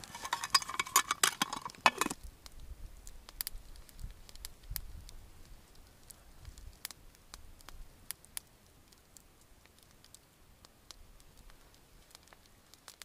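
Rattling and clicking for about two seconds as an army mess tin is handled over the campfire, then scattered sharp crackles from the fire, growing sparser and quieter toward the end.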